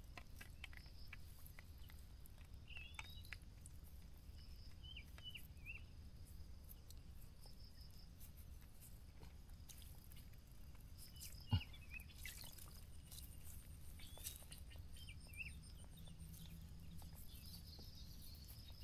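Faint outdoor ambience: a steady high insect buzz with a few short bird chirps, under scattered small clicks and rustles of a nylon shrimp-trap net being handled and shaken out, with one sharper knock about halfway through.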